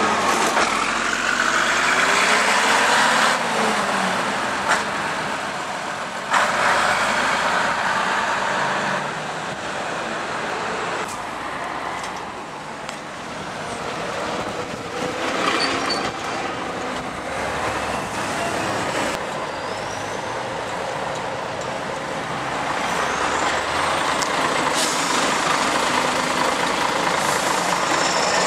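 Several buses pulling away and driving past close by in turn, their engines rising and falling in pitch as they move off. A sharp air-brake hiss comes about six seconds in.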